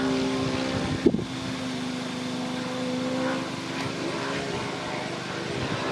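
Radio-controlled model biplane's engine and propeller running at a steady pitch in flight, with a short click about a second in.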